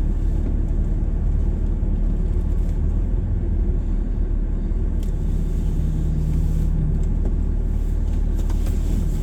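Vehicle engine and tyres running at low speed during a turnaround, a steady low rumble, with a brief steady hum joining about halfway through.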